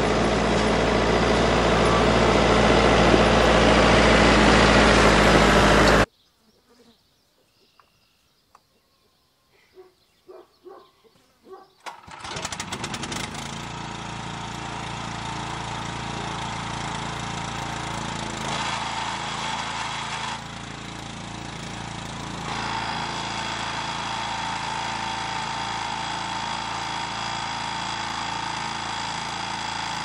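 A large farm tractor's engine running as the tractor drives closer and gets louder, cut off suddenly about six seconds in. After a few seconds of near quiet with small knocks, a gas engine-driven pressure washer starts and runs steadily, its sound stepping down and back up a few times as the spray is started and stopped.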